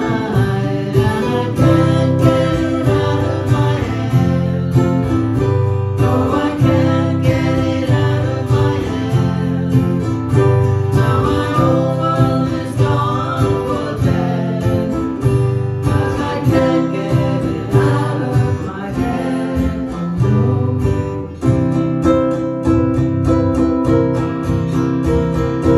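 Ukulele and acoustic guitar strummed together, with singing over them. About 21 s in the sound dips briefly, then the strumming carries on.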